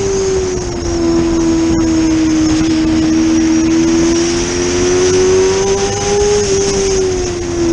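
Racing motorcycle engine held at high revs, with wind rushing over the onboard camera. The engine note sags a little, climbs steadily from about halfway and eases off again near the end.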